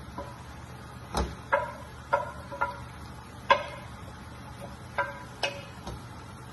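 A wooden spoon knocking against a glass dish about eight times, each knock ringing briefly, as sliced vegetables are scraped out of it into a cooking pot. A faint steady hum runs underneath.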